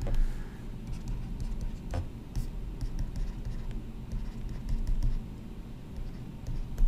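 Pen stylus writing on a tablet screen, making a scatter of small light taps and scratches with a few sharper clicks, over a steady low hum.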